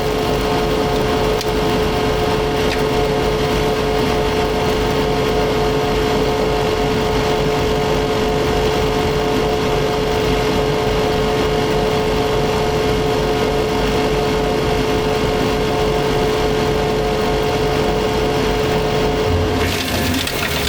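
Fecon forestry mulcher on a Takeuchi track loader running steadily, its spinning drum giving a held whine over the engine. Near the end the whine drops out and the sound changes.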